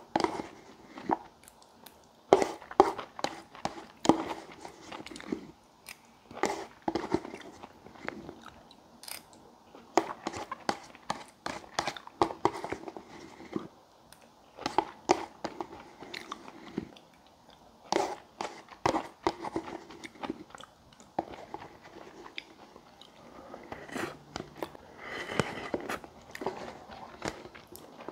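Close-miked eating sounds of a man finishing a cup of instant ramen: chewing, slurping and swallowing noodles and broth, with frequent short wet clicks.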